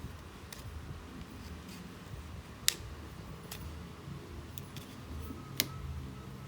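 Sharp plastic clicks and snaps as the front cover of a keypad mobile phone is pried off its clips: two loud snaps, one about two and a half seconds in and one near the end, among fainter ticks.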